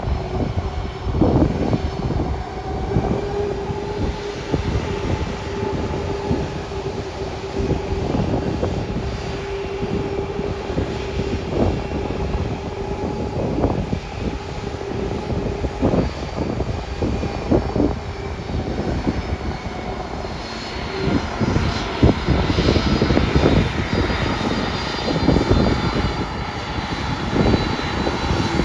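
Boeing 767 freighter's turbofan jet engines running at low taxi power, a steady hum. Near the end, as the aircraft turns to face the listener, a high engine whine comes up.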